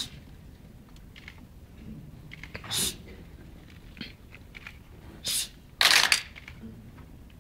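Kecak chorus of seated performers giving short, hissing group exclamations in unison, three in all. The loudest and longest comes about six seconds in, with quiet between.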